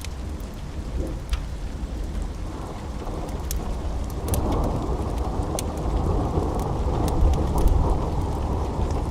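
Steady rain with a rolling rumble of thunder that swells about four seconds in and holds for several seconds. Scattered sharp crackles of a wood fire sound over it.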